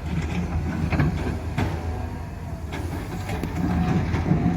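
Diesel engine of a Caterpillar 320 excavator running steadily, with a few sharp knocks.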